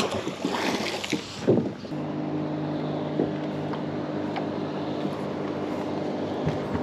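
A few loud clanks of heavy chain being handled in the first two seconds. Then a boat's motor running with a steady, even hum from about two seconds in.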